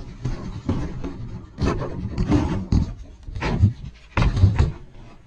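1/18-scale ECX Torment RC short course truck tumbling over dirt and rock, heard from a camera mounted on the truck. About half a dozen uneven thumps and scrapes as the body hits the ground, with rough rumbling in between.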